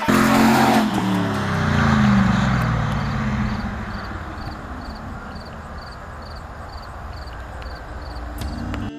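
1999 Pontiac Trans Am's LS1 V8 accelerating away, the exhaust note climbing in pitch and then fading as the car drives off into the distance.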